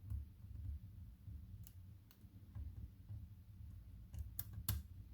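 Small, sharp metallic clicks of a hook pick probing the pins of a 5-pin pin-tumbler lock under tension, starting at the back pins. The clicks are scattered and irregular, with two louder ones near the end, over faint low handling rumble.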